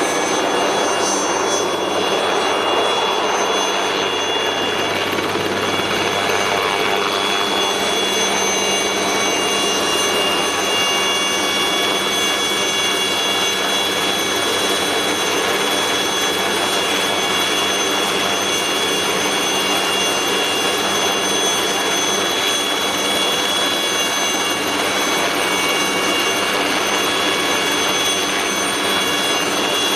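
Alouette III helicopter's single turboshaft engine running with a steady high whine while its main and tail rotors turn, the helicopter taxiing on its wheels and then standing at ground idle.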